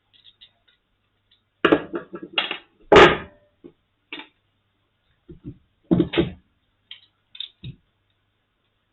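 Irregular clicks and knocks of hand tools against the plastic case of a Brüel & Kjær 2250 sound level meter during disassembly. There is a cluster of knocks about two seconds in, the loudest knock about three seconds in, and another cluster around six seconds.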